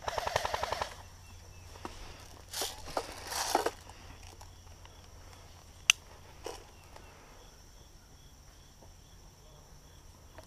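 A short full-auto burst from an airsoft electric rifle, a rapid buzzing rattle of shots lasting just under a second. Then footsteps and rustling through brush, with a single sharp click about six seconds in.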